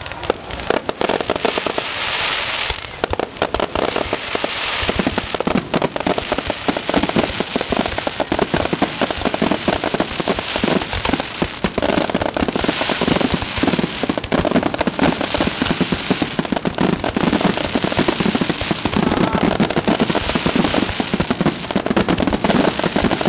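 A close-range aerial fireworks barrage: a dense, continuous run of shell bursts and bangs, with repeated waves of crackling hiss over them.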